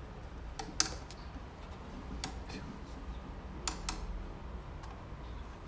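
A few light clicks and taps from handling a 1958 Windsor sewing machine (a Japanese clone of the Singer 15) as folded fabric is set under the presser foot, the sharpest a little under a second in. The machine is not running, and a low steady hum sits underneath.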